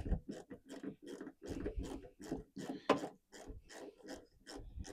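Quarter-inch ratchet with a T20 Torx swivel-head bit, clicking in short irregular runs as it is worked back and forth to back out a camera mounting screw.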